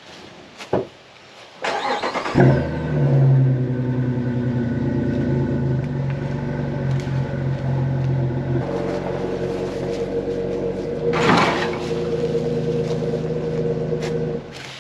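Jeep engine cranked and started about two seconds in, then idling steadily for about twelve seconds, its note changing once partway through, before shutting off abruptly near the end.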